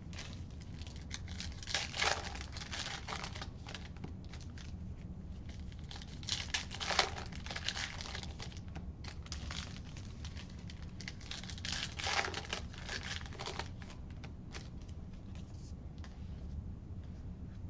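Baseball card pack wrappers being torn open and crinkled, with three louder tearing bursts about two, seven and twelve seconds in, between lighter rustling and small clicks of cards being handled.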